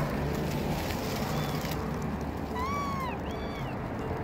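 Young kitten mewing: a few short, high-pitched mews rising and falling in pitch, the clearest about two and a half seconds in, over a steady outdoor background hiss.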